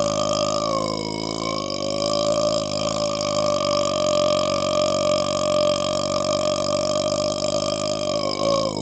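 A man's long, drawn-out burp, held unbroken and steady in pitch, with a brief dip in pitch about a second in and another change near the end.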